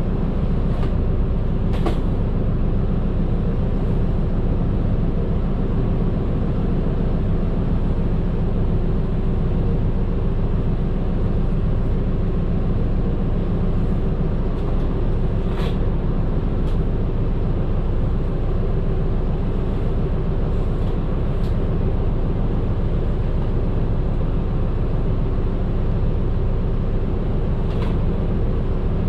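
Medium bus engine running steadily under way, heard from inside the cabin as a constant low drone, with a few short clicks or rattles.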